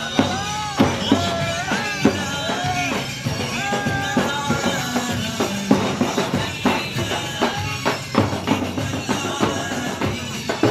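Arab folk wedding music: a tabl drum beats a steady, driving rhythm under a melodic line whose notes bend up and down.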